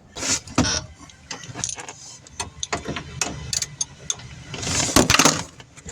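Hand tools clicking and knocking against metal at irregular times, with a louder clatter about five seconds in, as a socket is tried on a bolt under a car's dashboard.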